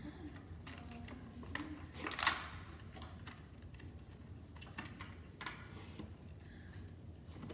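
Hot Wheels toy car blister pack being opened by hand: scattered plastic and cardboard crackles and clicks, one sharper snap about two seconds in.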